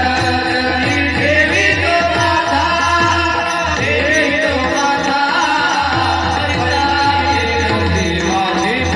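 Devotional kirtan singing: a voice sings a melody with wavering, ornamented notes over steady, sustained instrumental accompaniment.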